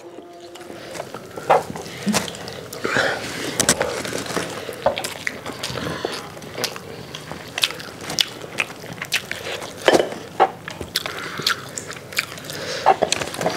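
Close-miked eating by several people: chewing and lip-smacking on biryani rice and fried whole chicken chargha, with many short wet clicks and the odd crunchy bite.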